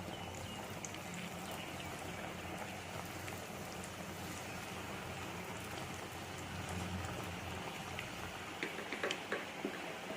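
Samosas deep-frying in well-heated oil: a steady sizzle with scattered crackles, and a few sharper pops near the end.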